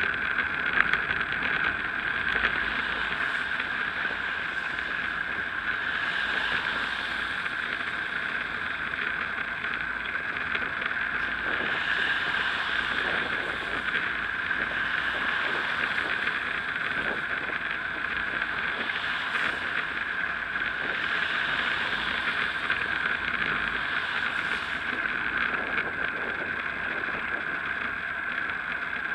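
Steady rushing wind and tyre noise from riding a bicycle on a wet road, picked up by an action camera's microphone, with a couple of small knocks in the first few seconds.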